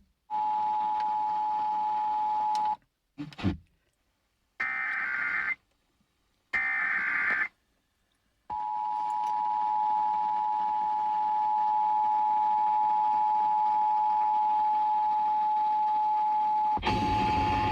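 Emergency Alert System tones played through an FM radio. A steady tone sounds for a couple of seconds and stops. Then come two short bursts of higher, buzzy data tones (the SAME header codes), then the steady two-tone attention signal for about eight seconds, and the spoken test announcement begins near the end.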